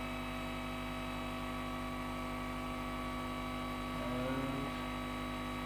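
Hot air rework station blowing onto a Raspberry Pi 4's new USB-C connector to reflow its solder, a steady hum and whir. A brief rising tone comes in about four seconds in.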